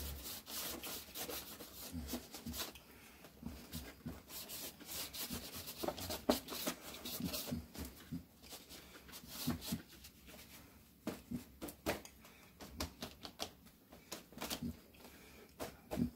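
Paper towel loaded with acrylic paint being rubbed lightly over watercolor paper in quick, irregular strokes, a soft scratchy rubbing to give the paint a textured finish.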